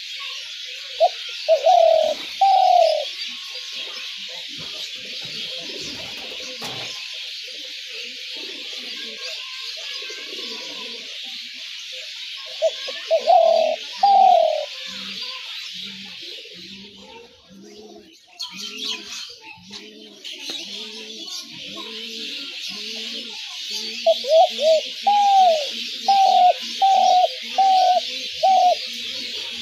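Spotted doves cooing in three bouts of arched, rising-and-falling calls, the last a longer run of repeated notes. Softer, lower coos repeat in between, over a steady high hiss that drops out briefly in the middle.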